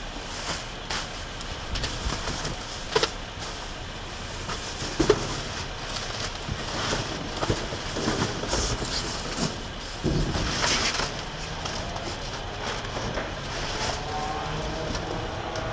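Plastic sheeting and bubble wrap rustling and crinkling as loose trash is pulled about, with scattered knocks of cardboard and foam pieces, a few of them sharper. A steady low rumble runs underneath.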